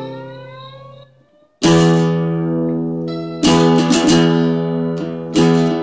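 Guitars strumming chords. A chord rings and dies away with some of its notes sliding upward, then after a short pause about one and a half seconds in, slow strummed chords start, a new chord roughly every two seconds.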